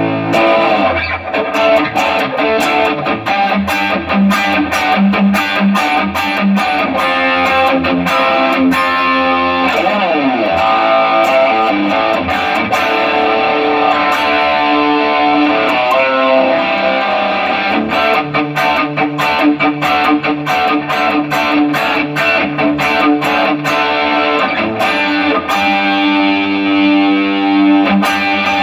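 Electric guitar played through a Fractal Audio FM3 amp modeler, with a distorted, effects-laden tone and many picked notes and a sliding drop in pitch about ten seconds in. The repaired unit is passing sound normally.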